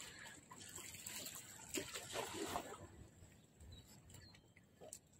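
Faint seawater lapping and splashing against the shore, with irregular small splashes, dying down about three seconds in.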